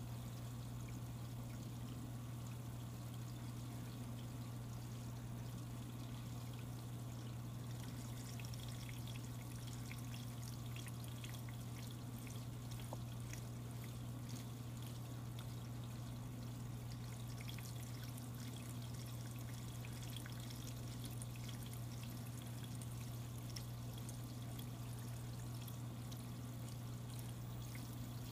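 Aquarium water trickling steadily over a constant low hum, as from a running tank filter and its pump; a faint crackling joins in about eight seconds in.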